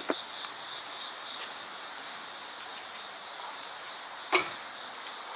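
Steady, high-pitched chorus of crickets, with a single brief knock a little past four seconds in.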